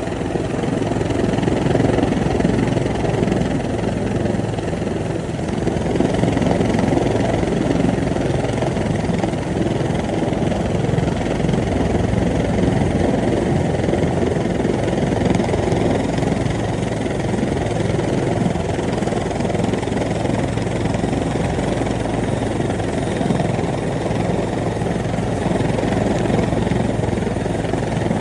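Rescue helicopter's engine and rotor running steadily, a continuous low mechanical drone.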